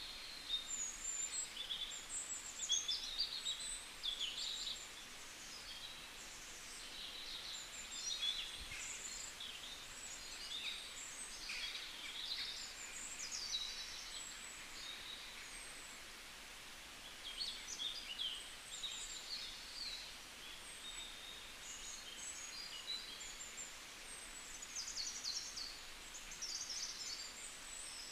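Many small birds chirping and twittering in a busy, continuous chorus of short high calls, with a brief lull midway.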